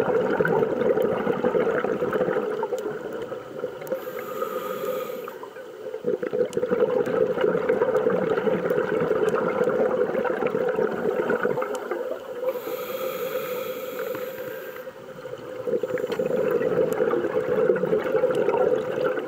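Scuba diver's open-circuit regulator breathing heard underwater: long stretches of bubbling, gurgling exhalation, broken twice by a shorter hissing inhalation, about four seconds in and again about twelve seconds in.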